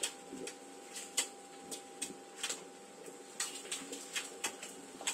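Irregular light clicks and taps, a few a second, of utensils and a steel plate at a large flat griddle where dosas are cooking, over a faint steady hum.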